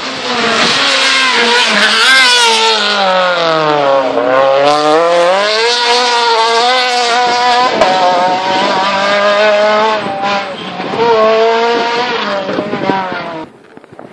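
Rally car engine at full throttle on a special stage, revving hard through gear changes. Its pitch dips low about four seconds in, then climbs again, with more shifts after. The sound drops away abruptly near the end.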